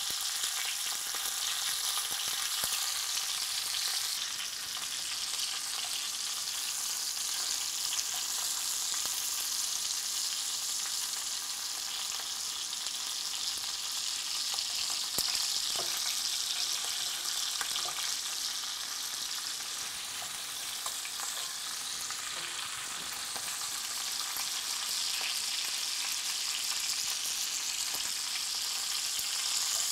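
Venison shanks sizzling as they brown in hot bacon fat in a cast iron Dutch oven over medium heat: a steady frying hiss.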